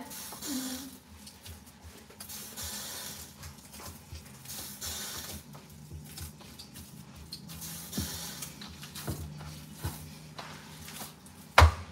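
Hands kneading stiff wholewheat dough (atta) in a steel plate: soft pressing, squishing and dull thumps, with one sharp loud knock near the end as the dough is folded over and slapped down against the steel.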